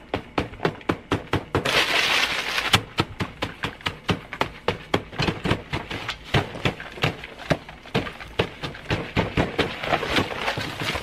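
Rapid, repeated smacks of a plastic shovel and hands beating and smashing a pile of fast food on a table, several blows a second, with a harsh noisy burst about two seconds in.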